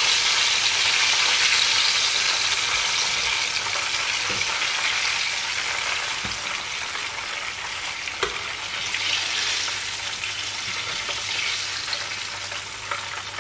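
Blue whiting (verdinhos) frying in a pan of hot oil: a steady sizzle that slowly dies down. A couple of light clicks come about six and eight seconds in.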